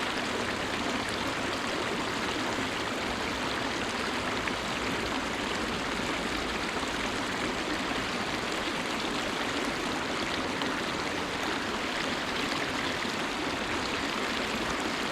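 Steady rush of river water flowing over riffles, a continuous even noise with no break.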